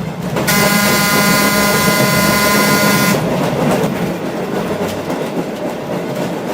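Electric streetcar running on rails with a steady rumble, and one held horn blast of about two and a half seconds starting about half a second in.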